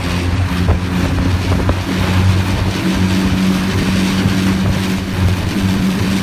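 Boat's outboard motor running at a steady pitch under a rushing noise of wind and water.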